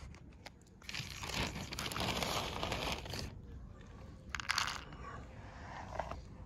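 Dry cat kibble being handled by hand: a couple of seconds of dense crinkling and rustling, then a short rattle about four and a half seconds in, as a handful drops into a plastic bowl.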